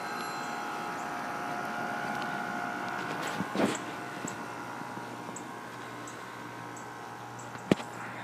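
Steady hum of outdoor air-conditioner condenser units running, strongest early on and fading as the microphone moves away. A sharp knock comes about three and a half seconds in and another near the end. Faint high chirps repeat about twice a second in the second half.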